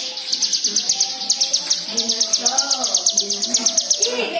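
Hill prinia (ciblek gunung) song used as a training lure: a rapid, high, dry chattering trill of about ten notes a second, with lower warbling notes wavering underneath.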